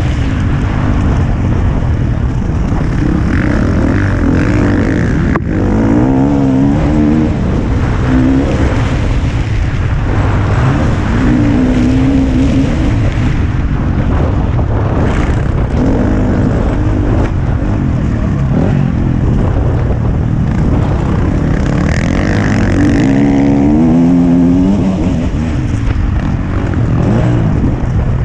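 Motocross bike engine heard from the rider's helmet, its revs rising and falling over and over as the rider throttles on and off, with heavy wind rush on the microphone.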